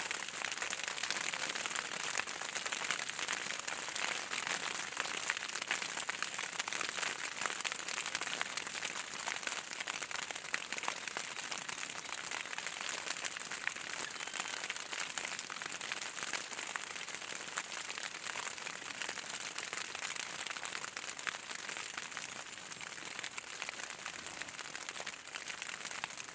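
Graupel falling thickly onto pond water, dead reeds and ground: a continuous hiss of countless tiny ticks, easing a little near the end.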